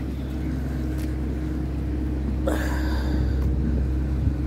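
An engine running at a steady, unchanging pitch, a low hum that slowly grows louder.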